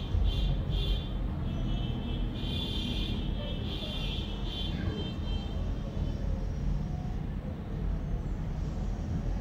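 Steady low rumbling background noise, with faint higher-pitched patches of sound in the first few seconds.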